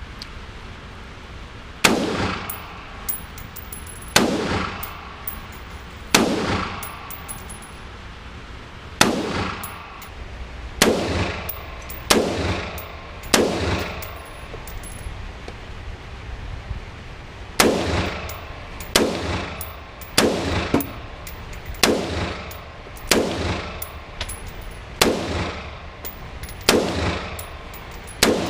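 Single gunshots at a shooting range, about fifteen of them fired one at a time at uneven intervals of one to three seconds, each with a short echoing tail.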